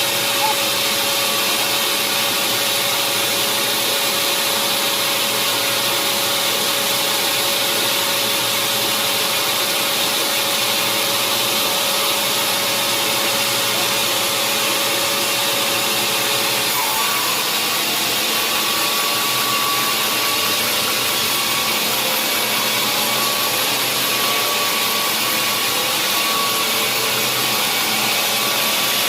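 Sawmill saw running steadily through a large mahogany log, making a loud, even noise with a faint tone in it that steps higher about two-thirds of the way through.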